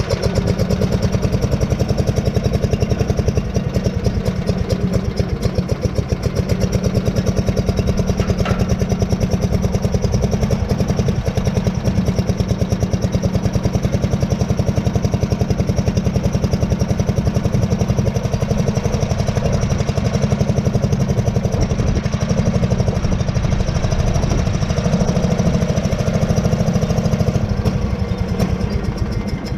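Allis-Chalmers B-10 garden tractor's single-cylinder engine running steadily, shutting off near the end.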